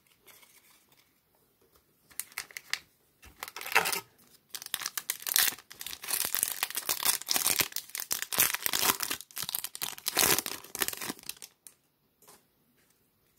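Foil wrapper of a baseball card pack being torn open and crinkled by hand. A few short rustles come about two seconds in, then dense crinkling and tearing that stops shortly before the end.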